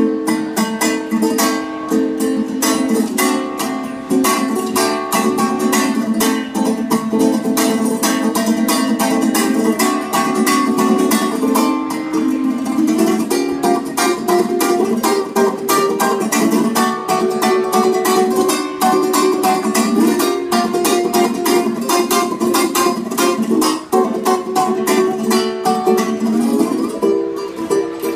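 Solo ukulele played with fast, continuous rhythmic strumming, moving through chord changes without singing.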